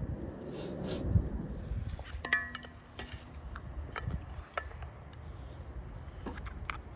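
Scattered clinks and knocks of metal cookware and utensils being handled, with a brief high ringing tone a little over two seconds in.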